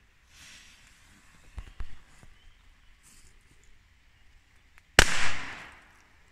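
Two small strike-head firecrackers (Nico Reibkopfknaller) going off together as one sharp bang about five seconds in, with a short echoing tail. A brief fizz near the start is the friction heads flaring as they are struck.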